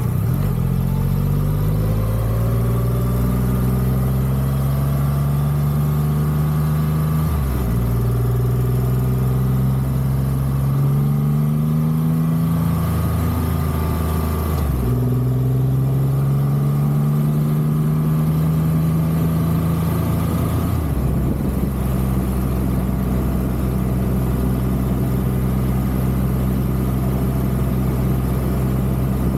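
Triumph Rocket 3's three-cylinder engine pulling up through the gears: its pitch climbs, then drops at each of three upshifts, and holds steady at a cruise for the last several seconds.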